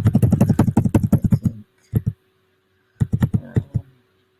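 Computer keyboard keys tapped in a fast run for about a second and a half, then two single presses and another short flurry about three seconds in. These are repeated Tab presses cycling through an Alt+Tab window switcher.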